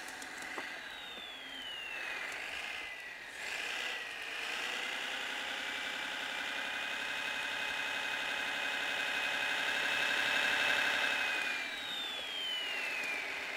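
Kyosho Blizzard DF-300 model snowcat running, its Servonaut SMX sound module playing a simulated snowcat engine through a small speaker. A thin high whine falls in pitch about a second in, holds steady through the middle where the sound is loudest, and falls again near the end.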